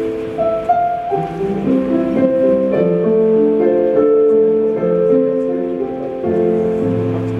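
Slow music with long, overlapping held notes.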